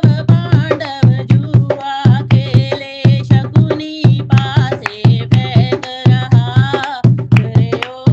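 Bhajan-style devotional music: a hand drum keeps a steady, quick beat under a bending melodic line.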